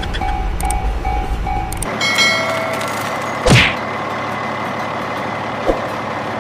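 Low vehicle rumble with an evenly repeating beep, then a sudden cut to a whoosh that falls in pitch into a heavy thud, and a smaller thud near the end.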